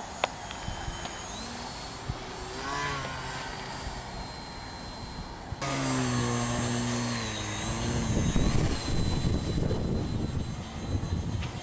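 Electric RC model plane's brushless motor and propeller whining in flight, a thin high tone that wavers in pitch with the throttle and gets louder suddenly about halfway. Wind buffets the microphone, heavier in the second half.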